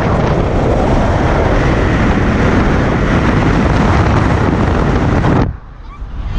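Heavy wind buffeting on a camera microphone held outside a moving car, mixed with road noise. It cuts off suddenly near the end as the camera comes inside the car.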